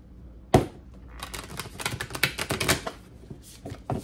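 A deck of oracle cards being handled and shuffled by hand: one sharp knock about half a second in, then a quick run of crisp card clicks.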